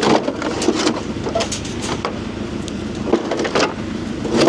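A construction machine's diesel engine running steadily, with a string of sharp knocks and clatters from barn roof material and debris falling and hitting metal. The clatter is heaviest at the start and again about three and a half seconds in.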